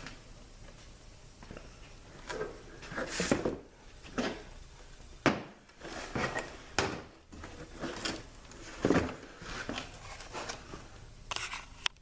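Replacement transmission parts being picked up, unpacked and set down on a workbench: a string of irregular knocks and rustles.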